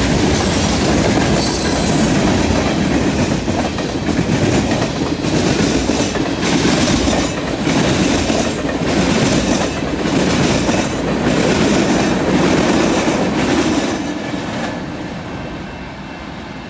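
Loaded freight cars (covered hoppers and tank cars) rolling past at close range: a steady rumble with rhythmic clacking of wheels over the rail joints. The sound fades away after the last car goes by, about 14 seconds in.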